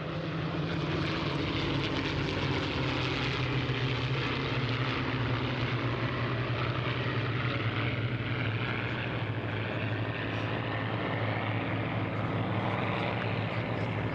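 Piston engine of a propeller-driven aircraft running, a steady drone that drifts slightly in pitch.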